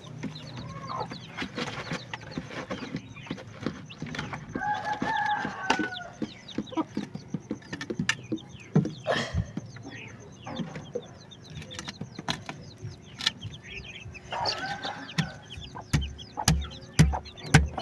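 Chickens clucking while chicks peep in short high chirps, with a longer pitched call from an adult bird about four seconds in and again about fifteen seconds in. Scattered sharp knocks and taps run through it, with a few low thumps near the end.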